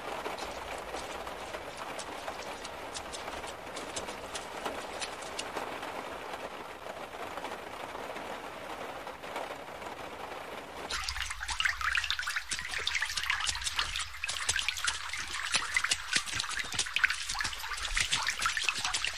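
Rain and water noise from flood footage: a steady wet hiss with faint patters. About eleven seconds in, it gives way to a harsher crackling hiss with a low rumble under it.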